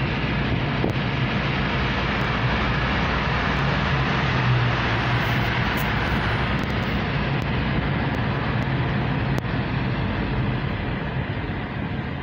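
Steady rushing road and engine noise of a car driving along a city road, heard from inside the moving car. It eases slightly near the end.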